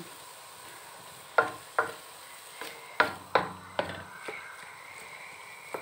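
Wooden spatula knocking and scraping against a wok while stirring strips of jicama in a little broth: about six sharp taps between one and four seconds in, over a faint sizzle.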